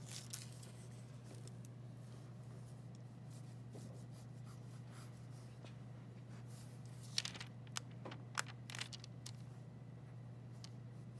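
Pencil scratching and ticking on tracing paper as guide lines are drawn, with a cluster of sharper strokes about seven to eight and a half seconds in. Steady low hum underneath.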